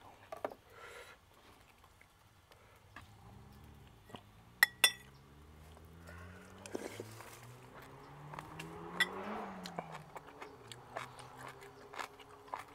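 Two sharp clinks of a metal spoon against a bowl a little before halfway, with soft eating sounds around them. Behind them a vehicle engine hums, rising in pitch to a peak past the middle and then falling away as it passes.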